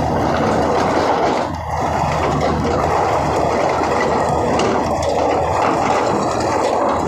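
Hydraulic rock breaker on a SANY 210 excavator hammering rock in a rapid, continuous run of blows, with a brief lull about a second and a half in.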